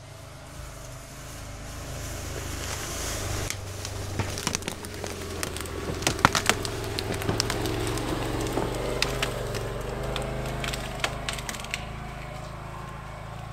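Can-Am Defender HD10 UTV's V-twin engine running as it drives slowly past over fallen branches and brush, its drone building and then fading. Branches and twigs crack and snap under it, most sharply through the middle.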